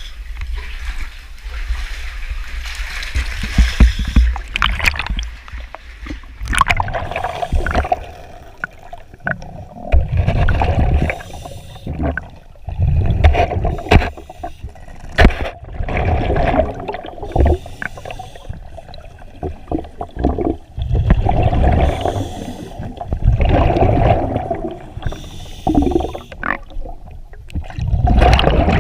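Water splashing and gurgling around a cave diver as he goes into a sump, then repeated bubbling surges every couple of seconds, like a diver's exhaled bubbles from a scuba regulator, mixed with occasional knocks.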